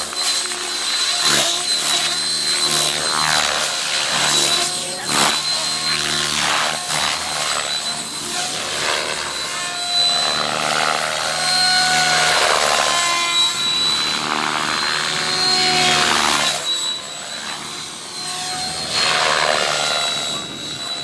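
Radio-controlled 3D helicopter flying aerobatics: a steady high whine from its drive under the rush of the rotor blades, which swells and whooshes and glides up and down in pitch as the model flips and passes overhead.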